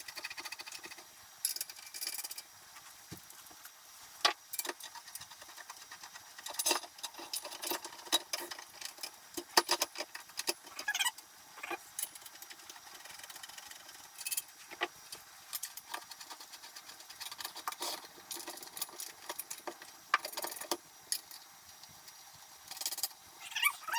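Irregular metal clicks, clinks and rattles of caster wheels and their hardware being handled and fitted to workbench legs, with a few short squeaks.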